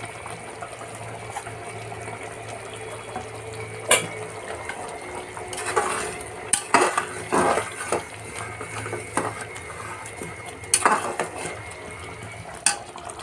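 Metal spatula stirring thick mutton korma gravy in an aluminium pressure cooker, scraping along the pot and giving several sharp clinks against its sides, over a steady low hum.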